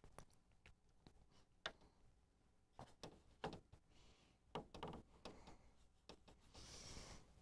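Faint taps and short scrubbing strokes of a paintbrush mixing watercolour paint in a palette tray, with a brief soft hiss near the end.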